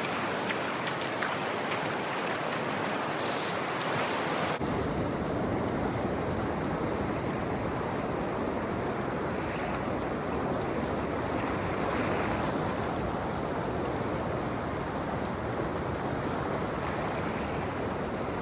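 Steady wash of ocean surf breaking on the beach. About four and a half seconds in, the sound abruptly turns fuller with a low rumble underneath.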